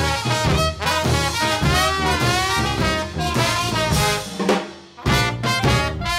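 Background music led by brass horns in an upbeat swing style, dipping briefly about five seconds in before carrying on.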